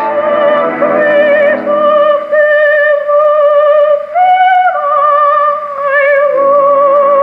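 A soprano voice with orchestra, played from a 1946 shellac 78 rpm record on an acoustic EMG Mark Xb horn gramophone with a thorn needle. She holds long notes with a wide vibrato, stepping up to a higher note about four seconds in.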